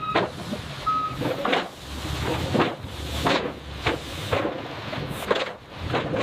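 Repeated clanks and knocks, roughly one or two a second, over a low hum, with two short electronic beeps in the first second or so.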